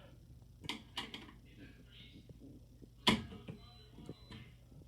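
Faint clicks and taps of work on the screw terminals of a fire alarm strobe's wiring as they are checked for tightness, with one sharper click about three seconds in, over a faint steady low hum.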